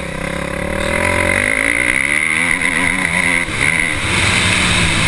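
Motocross bike's engine heard close up from an onboard camera. Its pitch eases down over the first second or so, then rises and falls as the rider works the throttle.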